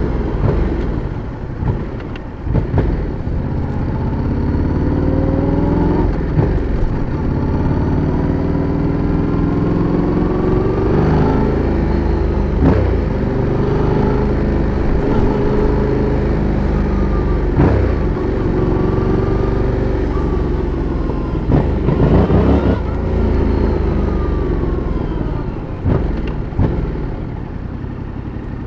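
Yamaha MT-07's parallel-twin engine and exhaust under a riding load, the revs climbing and dropping again and again as it pulls through the gears. There are short sharp breaks at several gear changes, and it eases off near the end.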